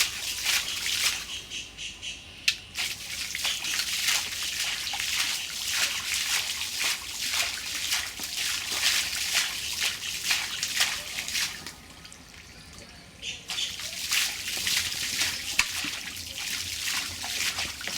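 Shallow muddy water splashing and sloshing in quick irregular strokes as hands grope through it for fish and shrimp. There is a short lull about twelve seconds in.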